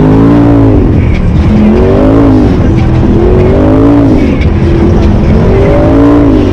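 Polaris RZR Turbo side-by-side's turbocharged engine, loud, revving up and dropping back about five times in a row, with a few faint knocks in between.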